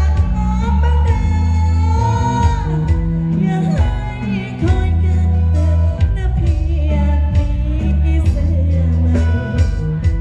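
Loud Thai pop music with a singer over very heavy bass, played through a rot hae sound truck's stacked speaker system of SR18 bass cabinets and TD-112 mid cabinets.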